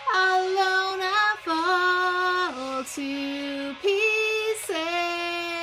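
A woman singing, holding a run of long sustained notes that step down and then back up in pitch.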